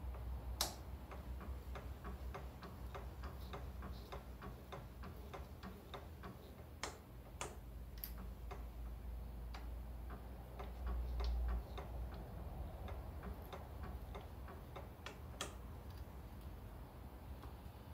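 Ratcheting tap wrench clicking as its handles are turned and swung back on a tap, a run of light, quick ticks with a few sharper clicks among them.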